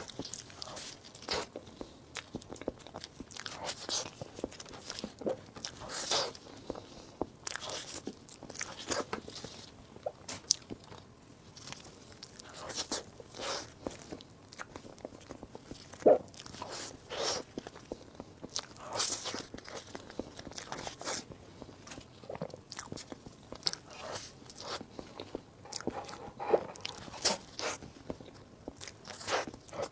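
A person eating close to the microphone: irregular bites and chewing, with sharp crackly clicks and wet mouth sounds at uneven intervals.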